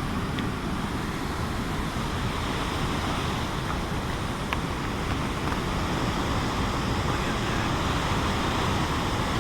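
Steady, overwhelming roar of a high-volume waterfall on the Hay River, a dense rushing of water without let-up that grows a little louder near the end.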